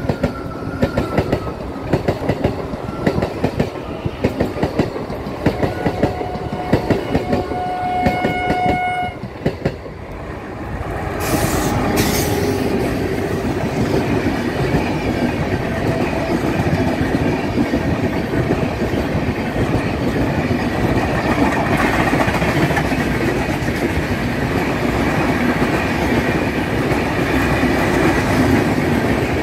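An electric local train's coaches roll past, wheels clicking in a steady rhythm over the rail joints, and a train horn sounds for a few seconds about a third of the way in. From about twelve seconds on, a long rake of express passenger coaches passes at speed with a steady, louder rumble of wheels on rail.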